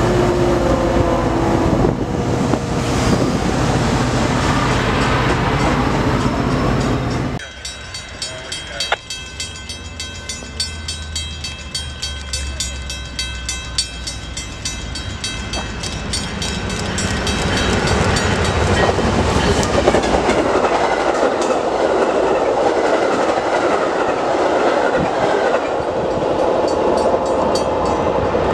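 Metra bilevel passenger cars rolling past close by, with steady wheel-and-rail noise that cuts off suddenly about seven seconds in. A quieter stretch follows with a rapid, evenly repeating bell ringing, then the sound of an approaching Metra train led by an F59PHI diesel builds up steadily.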